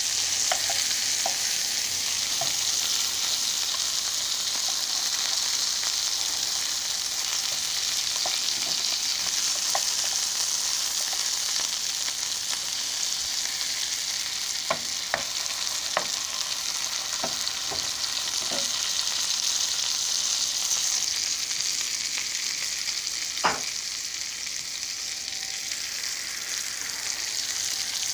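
Skinless chicken breasts sizzling in melted butter in a skillet: a steady frying hiss, with a few short clicks scattered through it, the sharpest near the end.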